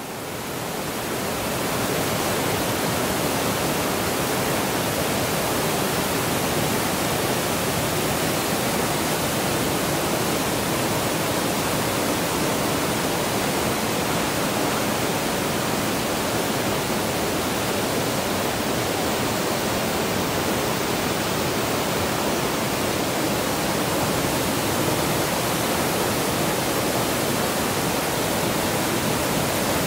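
Whitewater rapids rushing steadily, a dense even roar of churning water that fades in over the first second or two and then holds constant.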